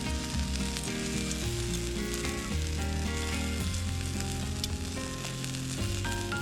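Food sizzling as it fries, a steady hiss with fine crackles.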